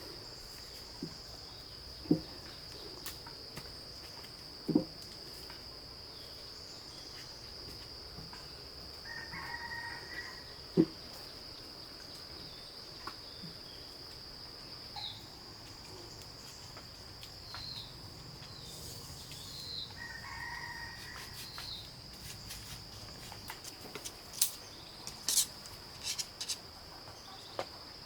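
A rooster crows twice, about ten seconds apart, over a steady high-pitched drone of insects. Scattered sharp knocks and clicks, coming more often near the end.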